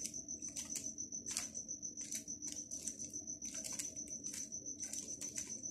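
Stickerless 3x3 speed cube's plastic layers being turned quickly through an OLL algorithm: a fast, irregular run of quiet clicks and clacks.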